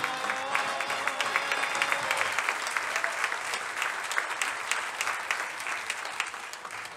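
Audience applauding steadily, with a held chord of background music fading out about two seconds in.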